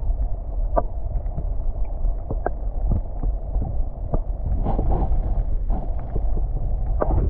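Muffled sound picked up by a camera submerged underwater: a steady dull rumble of water moving around the housing, with scattered small clicks and knocks and a brief crackling flurry about two thirds of the way through.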